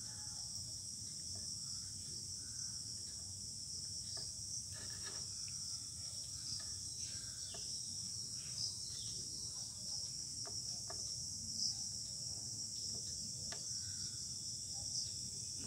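Steady high-pitched background drone at two pitches, with a few faint soft ticks scattered through it.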